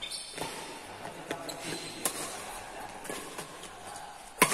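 Badminton rally: rackets striking a shuttlecock in a series of sharp pocks about every second, ending near the end with a much louder overhead smash that rings on in the echoing hall.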